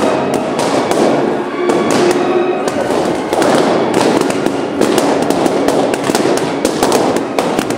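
Fireworks crackling: a dense, irregular string of sharp pops and cracks, loud throughout.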